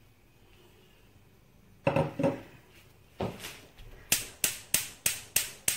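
Two dull knocks, then a gas stove's spark igniter clicking steadily at about three clicks a second, starting about four seconds in, as the burner under the oil-filled karahi is lit.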